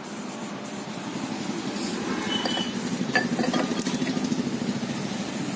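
Glazed ceramic flower pots clinking together a few times as a small fluted pot is set down among others, one knock ringing briefly. A low rumble swells underneath.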